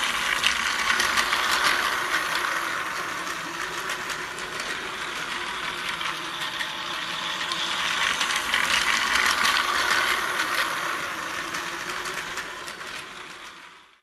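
Battery-driven Plarail toy train of the Kiha 183 series running on plastic track: a steady whir of its small motor and plastic gears, with a fine rattle of clicks from the wheels and track. It grows louder twice as the train comes round the near curve, then fades out at the very end.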